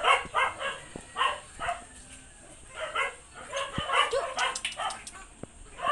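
Husky panting hard and fast, about three pants a second, with a short lull about two seconds in.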